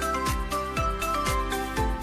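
Background music: a steady beat, about two a second, under a light melody of held notes.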